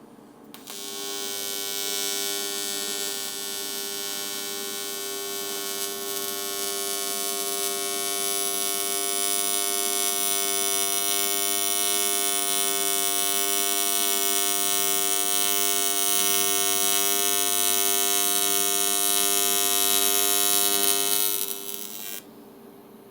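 AC TIG welding arc on 1/4-inch aluminium at 200 amps under straight argon: a steady buzz with many even overtones. It strikes about a second in and cuts off near the end.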